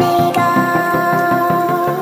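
Background music with a quick, steady beat and held melody notes.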